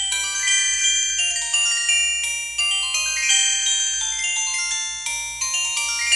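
A downloaded polyphonic ringtone playing on a Samsung SGH-T629 phone: a quick melody of bell-like struck notes, each dying away, two or three to a second, with almost no bass.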